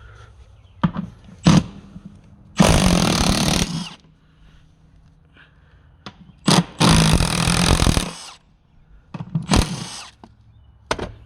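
Handheld power tool running in a series of bursts, the longest about a second, while backing out the seat mounting bolts.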